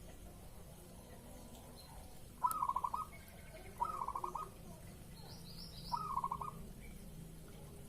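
Zebra dove (perkutut) singing its manggung song: three short phrases, each a rising note followed by a quick rolling run of coos, spaced a second or two apart. Faint high chirps of a small bird come between the second and third phrase.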